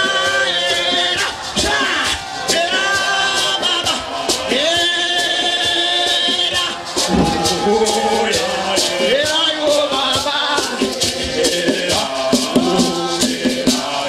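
A men's choir singing a Shona church song in harmony, accompanied by a hand drum and hand shakers that keep a steady, fast beat.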